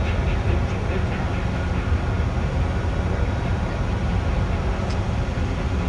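Steady low rumble of heavy machinery running, with a hiss above it and no distinct knocks or changes.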